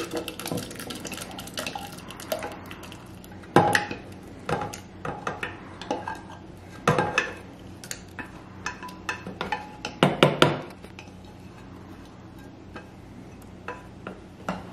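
A stainless steel saucepan being tipped and scraped out into a stainless steel food jar, its rim clinking and knocking against the jar's rim again and again, with three louder clanks a few seconds apart.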